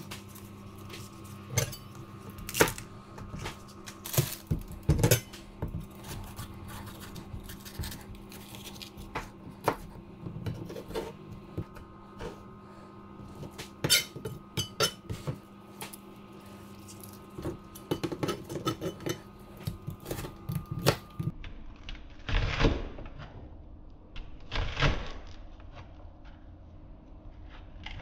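Chef's knife chopping spring onion and red bell pepper on a plastic cutting board: irregular sharp knocks of the blade hitting the board, in quick runs with pauses between.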